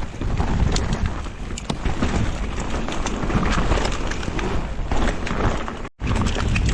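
Mountain bike descending a wet, slippery trail at speed: wind rushing over the microphone, tyres rolling over wet dirt and roots, and the bike rattling with many quick knocks over bumps. The sound cuts out for an instant near the end, then picks up again.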